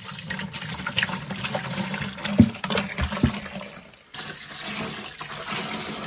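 White vinegar poured from a plastic gallon jug, splashing into a plastic bucket of liquid; the pour stops briefly about four seconds in, then resumes.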